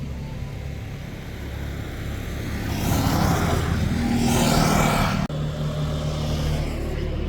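Crane engine running steadily, rising twice in the middle as it works, then settling back to a steady hum after a sharp click about five seconds in.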